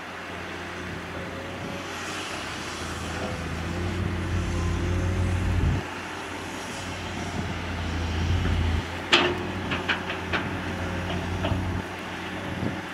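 Komatsu PC210 hydraulic excavator's diesel engine running, its low rumble swelling twice under load and dropping away sharply each time. A little past halfway there is a sharp clank, followed by several lighter knocks.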